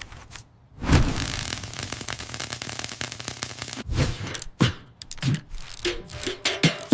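Workshop repair sound effects: a dense, fast rattling scrape like a power tool for about three seconds, followed by a series of separate knocks and clicks.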